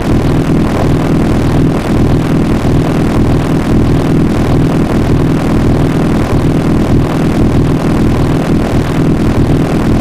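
Sound effect made with an online voice changer, using a 20 Hz vibrato, a slight downward pitch shift and a robotic 'alien robot' modulation. It is a loud, steady low drone of several stacked tones with a fast flutter running through it.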